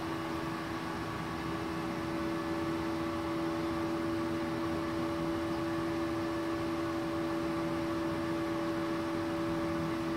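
Switched-on inverter welder (MultiPro TIG 200A-SA) humming steadily, its cooling fan running with two constant tones and an even whir, no arc struck.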